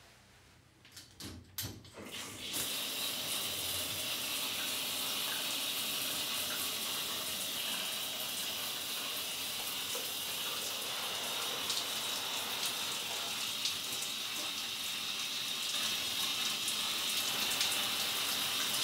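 A few short knocks in the first couple of seconds, then a handheld shower head spraying water steadily onto a person and tiled walls.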